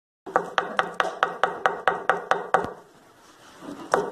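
Quick, evenly spaced sharp taps, about five a second, that stop a little before three seconds in and start again near the end.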